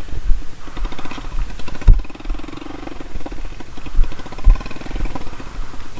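Custom chopper motorcycle's engine running at low speed on a rough dirt trail, its pitch rising twice as it is given throttle, with a few low thumps as the bike jolts over the ground.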